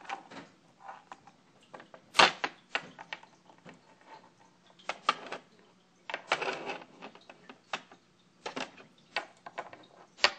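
Small plastic toys and a pink plastic toy basket being handled, knocking and clicking in scattered taps, with one louder knock about two seconds in and a short scuffing rattle just past the middle.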